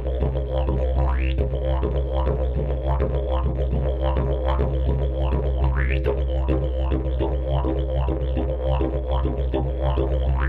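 Didgeridoo played with a continuous low drone and a fast rhythmic pattern shaped over it by the mouth and voice. Sharp rising vocalised cries cut through the drone about a second in and again just before the middle.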